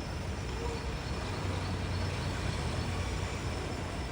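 Steady low rumble of a running vehicle engine under a constant hiss of street noise.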